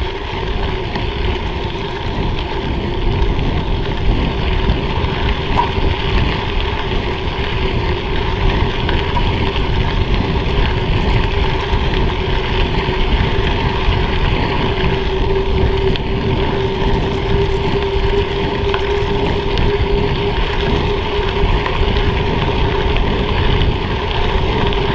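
Bicycle tyres rolling over a gravel trail with wind rushing on a handlebar-mounted camera's microphone: a steady, even rushing noise with a faint constant hum underneath.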